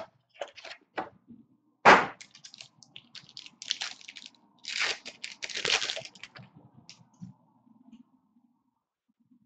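Foil wrapper of a 2015 Topps Tier One trading-card pack being torn open and crinkled. Sharp crackling comes in irregular bursts, loudest about two seconds in and again around five to six seconds in.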